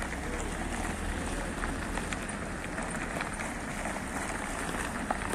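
Cars driving slowly past one after another on a rough dirt and gravel road: a steady mix of engine and tyre noise, with a few faint ticks.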